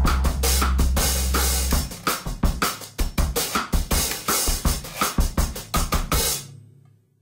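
Background music with a drum-kit beat. The bass drops out about two seconds in, leaving the drums alone, and the music fades out near the end.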